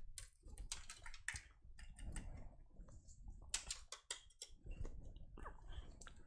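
Faint, scattered clicks and rustling of a USB keyboard cable being handled and plugged into a port on the back of a desktop computer.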